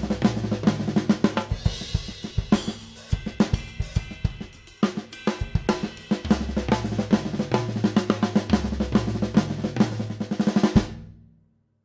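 Drum kit played in a 16th-note groove with flam licks on snare and toms, with hi-hat, cymbals and bass drum, over sustained low bass notes. The playing stops just before the end with a last hit ringing out.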